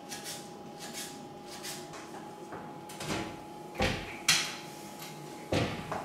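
Kitchen knife chopping ginger on a plastic cutting board in light, regular strokes. It is followed by a few sharp knocks and clatters about four and five and a half seconds in as the board is knocked against the frying pan on the hob.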